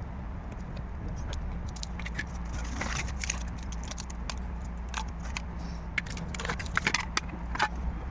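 Light clicks, taps and short scrapes of small hard parts being handled and worked, over a steady low hum. The clicks cluster about three seconds in and again near the end.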